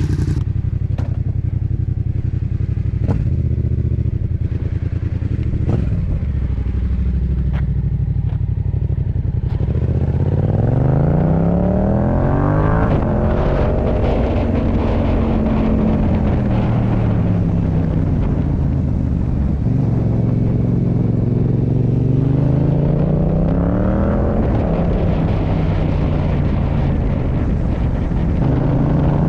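Yamaha MT-07's 689 cc parallel-twin engine through a MIVV GP Pro aftermarket exhaust: low and steady for about ten seconds, then revving up and down several times as the bike accelerates and slows.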